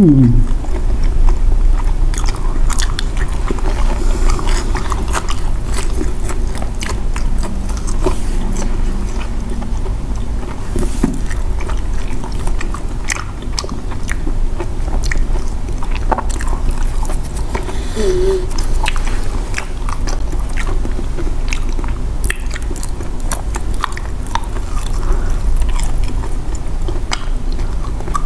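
Close-miked mouth sounds of two people biting and chewing soft sweet potato and cassava balls, with many small wet clicks and smacks throughout. There is a short "hmm" at the very start and a brief hum about two-thirds of the way in.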